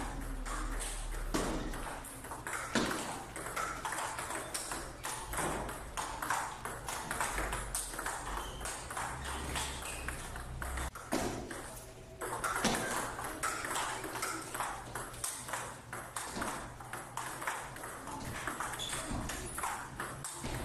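Table tennis ball clicking back and forth between rubber paddles and the table in a fast, continuous rally, with a brief break about twelve seconds in.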